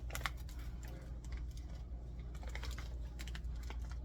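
Irregular light clicks, taps and crinkles of food packages and containers being picked up, turned over and set down, over a steady low hum.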